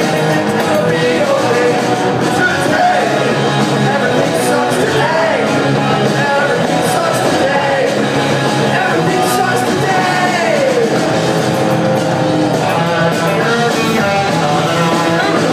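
Punk rock band playing live: electric guitars, bass and drum kit with a male singer, recorded from the audience in a concert hall.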